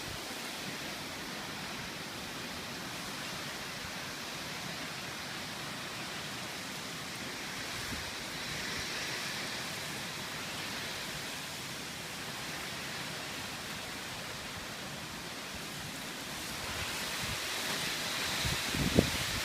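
Steady rushing of typhoon wind and rain, swelling around the middle and again near the end. A few low thumps of wind buffeting the microphone come near the end.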